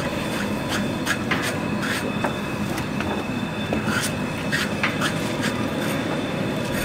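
Metal bell-type hog scrapers scraping the hair off a scalded hog's hide: several hands at once, making a steady run of short, irregular scraping strokes, a few a second.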